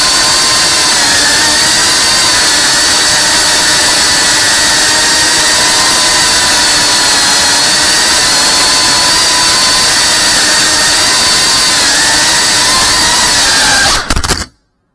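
FPV quadcopter's motors and propellers whining steadily at a high pitch that rises and falls slightly with the throttle. About fourteen seconds in, a few sharp knocks are heard and the whine cuts off abruptly.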